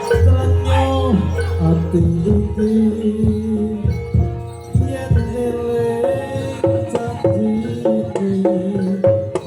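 Live Javanese jaranan gamelan music, with kendang hand drums beating a busy rhythm under a held, pitched melody line.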